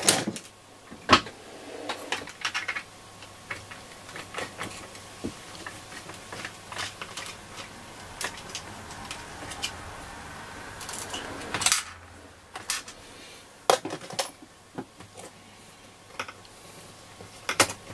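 Scattered light metallic clicks and clinks as hands handle a Roberts R707 transistor radio's metal chassis and its module, working the module loose. There are a few sharper knocks, one about a second in and several more in the last third.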